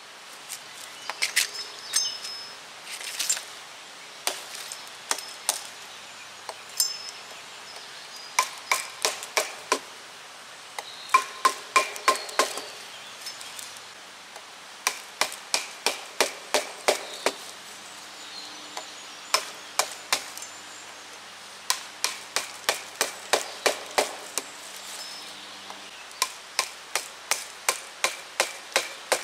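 Wooden baton striking the spine of a 30 cm Old Hickory full-flat-ground knife, batoning the blade through a log: a series of sharp knocks about two to three a second, in bursts with short pauses between.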